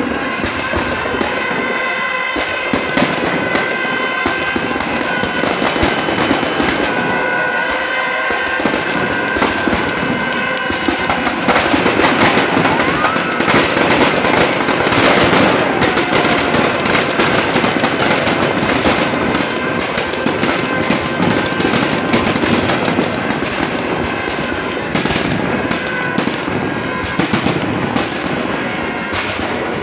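Firecrackers packed inside a burning Ravan effigy going off in a dense, continuous crackle of rapid bangs, thickest around the middle. Steady held tones of music run underneath.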